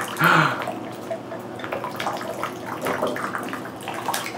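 Small splashes and drips of bathwater in a bubble-filled tub as a toddler dips and scoops with a plastic cup, scattered irregular plinks and sloshes.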